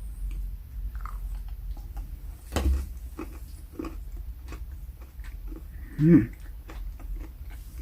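Close-miked chewing of a Hershey's Sugar Cookie Kiss chocolate, with many small wet clicks and crunches of the mouth. There is a stronger crunch about two and a half seconds in and a short vocal hum about six seconds in, which is the loudest moment.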